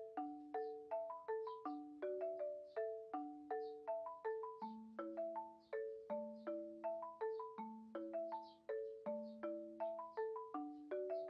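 Background music: a light melody of short struck mallet-percussion notes, each ringing briefly and dying away, at a steady, lilting pace.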